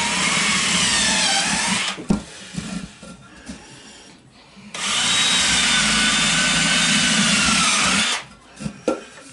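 Cordless drill running into wooden 2x4 framing in two long runs, the second longer, with a short pause and a click between them. The motor's pitch wavers and dips as it loads up in the wood. The user suspects the bits are worn and need replacing.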